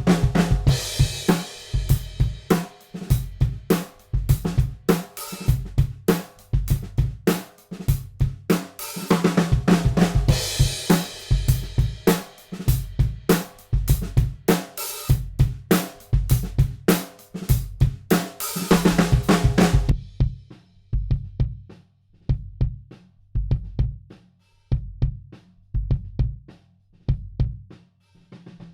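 Close-miked DW Collector's Series drum kit playing a steady groove of kick, snare, hi-hat and crash cymbals. About two-thirds of the way through, the cymbals drop out and mostly kick and snare hits carry on.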